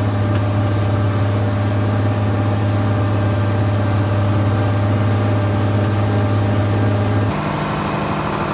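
John Deere tractor's diesel engine running steadily under load while pulling a five-bottom moldboard plow, heard from inside the cab as a steady low drone. Near the end the engine note shifts abruptly to a higher pitch.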